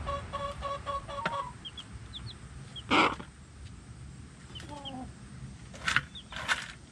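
Chicks under a week old peeping in short, high, rising cheeps while their mother hen clucks now and then, with a few louder calls about three and six seconds in. A steady hum sounds for the first second and a half.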